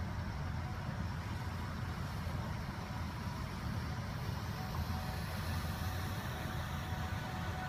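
Steady low rumble and hiss of traffic on a flooded street in a rainstorm, with a pickup truck's tyres swishing through the standing water about five seconds in.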